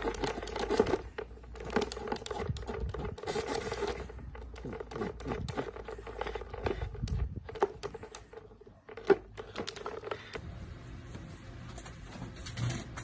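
A dachshund pawing and mouthing a plastic step-on dog sprinkler, with irregular clicks and scrapes and a short hiss of spraying water about three seconds in. There is one sharp loud click near nine seconds, then only soft rustling in the last few seconds.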